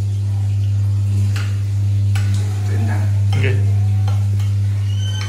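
A metal spoon clinking and scraping against a ceramic plate while eating, a few separate clicks, over a loud steady low hum.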